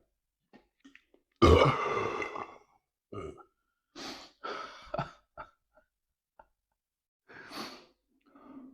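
A man burping: one long, loud burp about a second and a half in, then several shorter, quieter sounds.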